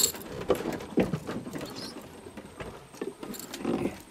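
Scattered light knocks and rattles as a freshly caught giant snakehead is handled and lifted in a small boat, a few sharp taps among quieter rustling.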